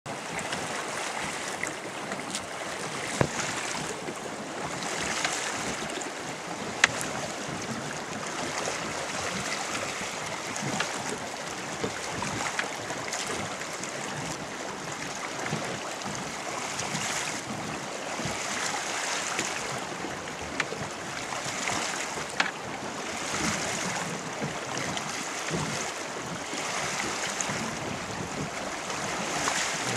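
River water sloshing and splashing against the side of a boat and through a landing net holding a salmon, a steady wash that swells and fades. Two sharp knocks stand out, about three and seven seconds in.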